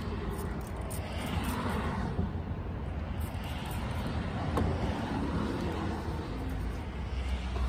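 A few short squirts of water from a trigger spray bottle into cupped hands, each a brief hiss, over a steady low rumble.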